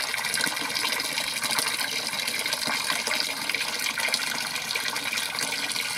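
Water running steadily, an even continuous rush.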